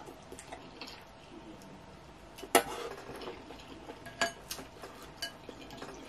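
A wooden spoon and plastic fork clinking against a glass bowl of ramen noodles: a few sharp clicks, the loudest about two and a half seconds in, with lighter taps over the next few seconds.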